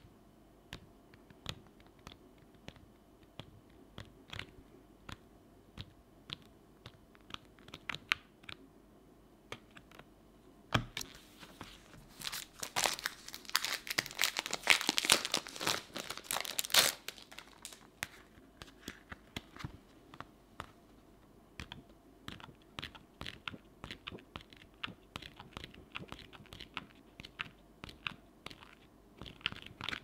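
Paper sheets of a sticker book being turned and handled: light taps and rustles throughout, with a denser stretch of loud paper crinkling for about five seconds in the middle.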